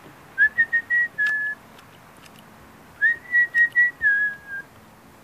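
A person whistling to call a dog: two short whistled phrases, each a few quick notes held at about the same pitch, with a slight rise at the start and a drop at the end. The first comes about half a second in, the second about three seconds in.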